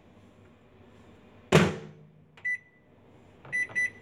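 Magic Chef microwave oven door shut with a single loud clunk about one and a half seconds in, followed by keypad beeps: one short beep about a second later and two quick beeps near the end as the cooking time is entered.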